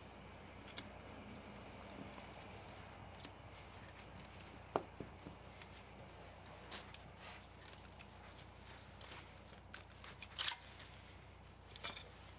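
Scattered clicks and snips of hand tools working metal on a scrapped electric motor being stripped for its copper. The sharpest click comes about five seconds in, with a cluster of snips near the end.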